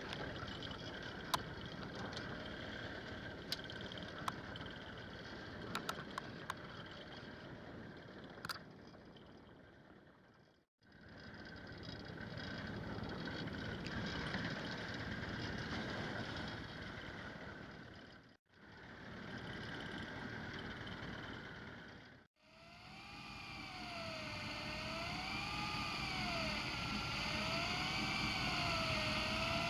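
Boat engine and sea noise, with a few sharp clicks in the first part, broken by three brief fades to silence. After the last fade, a mechanical whine that wavers up and down in pitch joins the noise.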